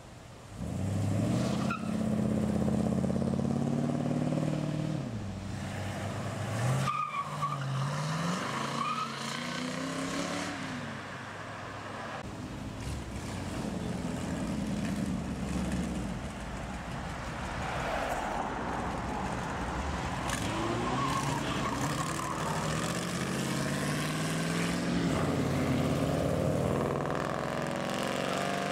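A line of classic and custom cars driving past one after another, their engines revving up and easing off as each pulls away; engine sound rises sharply about a second in and several separate accelerations follow.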